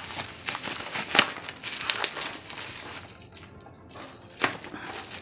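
Plastic courier mailer and bubble wrap crinkling and crackling as they are handled and slit open with a craft knife, with a few sharp snaps.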